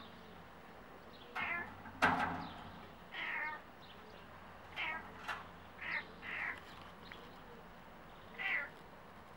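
Domestic cat making a string of about eight short meows and chirps at birds, the loudest about two seconds in.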